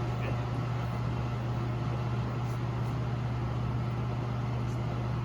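Steady low mechanical hum with an even background drone, unchanging throughout.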